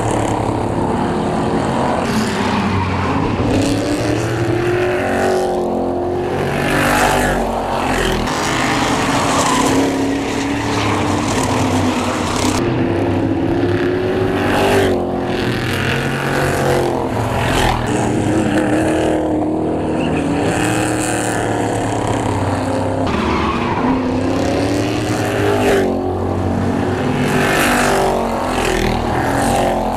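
Pickup-bodied oval race trucks running hard past the trackside, their engines rising and falling in pitch as each pack goes by, several times over.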